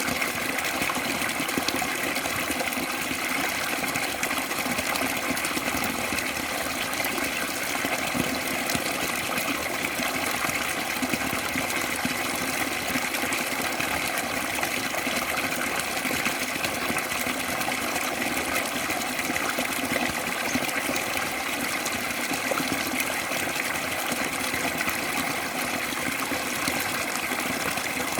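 Water pouring steadily from a paddy-field overflow spout and splashing into a fish pond: an even, unbroken splashing with no pauses.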